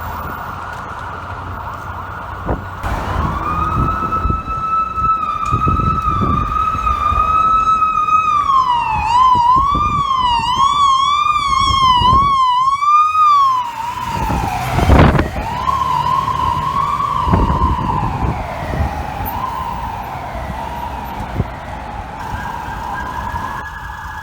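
Emergency vehicle siren on FDNY apparatus. It rises into a steady wail, switches to a fast up-and-down yelp about eight seconds in, then sweeps down. After a short loud blast about fifteen seconds in it wails again and fades, over a low traffic rumble.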